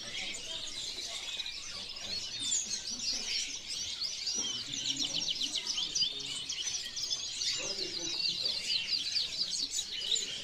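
Many caged canaries singing and chirping at once, a dense chorus of overlapping high chirps and rapid trills.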